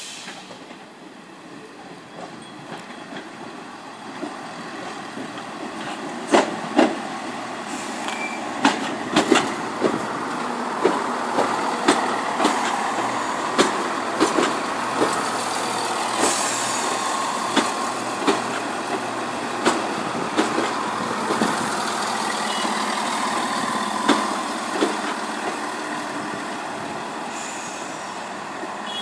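Greater Anglia Class 170 Turbostar diesel multiple unit coming in and running past along the platform, its diesel engines humming and growing louder over the first few seconds. Sharp clacks of its wheels over rail joints repeat about once a second.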